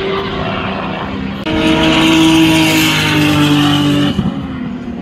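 Race car engines at speed on a road course: a car running in the distance, then from about a second and a half in a much louder car at high revs passing close, its note dropping slightly about three seconds in. The loud part cuts off abruptly just after four seconds, leaving the distant engine sound.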